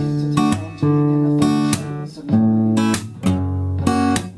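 Guitar playing chords in a rhythmic pattern of held notes and sharp percussive strokes, the chord changing about every second.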